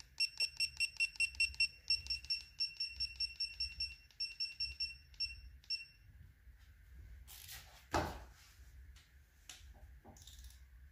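A Snap-on digital torque wrench beeping in quick runs of short, high beeps, about five or six a second, for the first six seconds as its setting is stepped up to 50 foot-pounds. A single sharp knock follows about eight seconds in.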